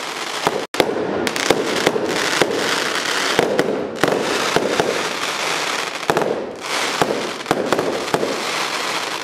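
Fireworks display: a dense run of sharp bangs and crackles, one after another, cutting out for an instant just under a second in.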